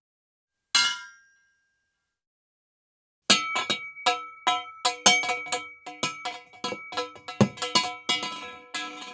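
A single short metallic clink, then, about three seconds in, a quick run of clanging strikes on a ringing piece of metal, several a second, each hit leaving the metal ringing on.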